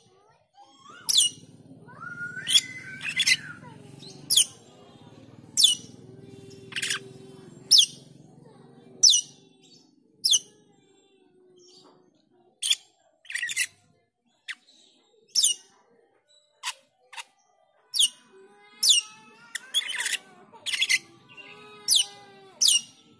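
Asian glossy starling (jalak keling) calling: sharp, high notes that sweep downward, repeated about once a second, broken by bursts of chattering twitter a couple of seconds in and again near the end.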